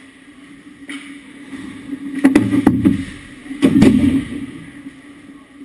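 Two loud bursts of knocking and scraping close to the camera behind the ice hockey goal as play reaches the crease, each under a second long and about a second apart.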